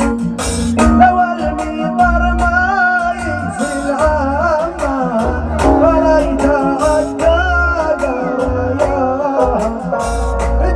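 Male voice singing a hajini, a Bedouin-style song, over held keyboard tones and a steady low beat.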